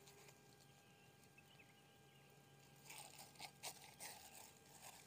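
Near silence, then from about three seconds in, soft irregular crackling and rustling of a nylon mesh hand net being scrunched and worked by hand.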